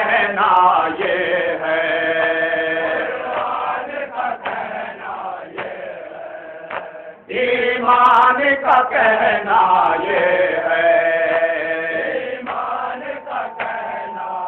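Man chanting a noha, a Shia mourning lament, into a microphone over a loudspeaker, with the same sung line starting again about halfway through.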